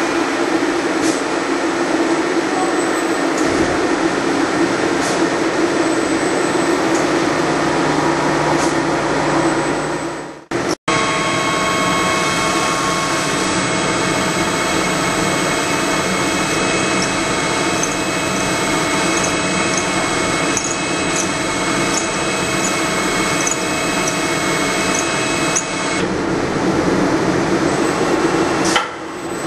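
Fryer ET-21 CNC lathe drilling a part held in its spindle: a steady, loud machining noise of the running spindle and the drill cutting. It breaks off suddenly about ten seconds in and resumes with several steady whining tones over the noise.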